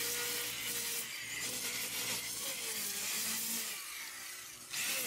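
A Sand-o-flex flap sander spinning in a drill, its flaps slapping over the carved wood of a small tree. The motor whine wavers as the sander is pressed and eased, and the sanding noise drops for a moment about four seconds in before picking up again.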